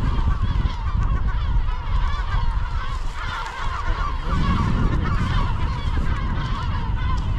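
A colony of large gulls calling: many overlapping short, harsh calls. These are adults upset at their nests and chicks being approached. Wind rumbles heavily on the microphone underneath.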